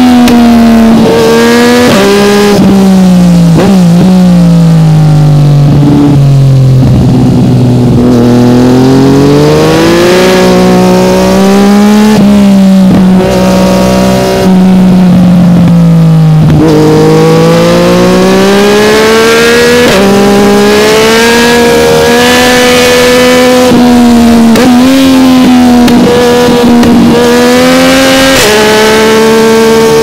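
Yamaha MT-09's inline three-cylinder engine running through an Akrapovic carbon exhaust, heard on board while riding. The engine note falls and rises with the throttle, sinks low for a few seconds around the middle, climbs back, and near the end jumps in several quick steps at gear changes.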